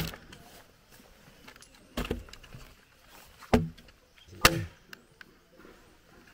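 A heavy wooden pole pounding ayahuasca vine against a log to crush it: three knocks starting about two seconds in, the first two a second and a half apart, each ringing briefly.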